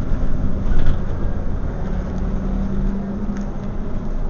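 Scania OmniCity single-deck bus heard from inside the passenger cabin while under way: a low diesel engine drone and road rumble, with a steady low hum joining from about two seconds in.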